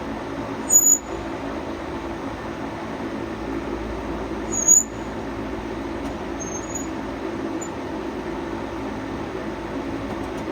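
Wood-Mizer bandsaw sawmill running steadily with a constant engine drone. Two brief high-pitched squeaks, about a second in and again about five seconds in, are the loudest moments.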